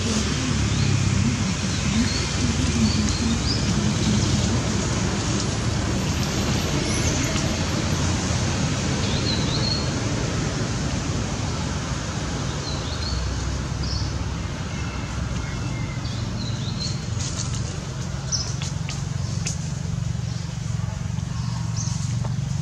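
Steady outdoor background noise with a low rumble, with short bird chirps every few seconds and a few faint clicks in the second half.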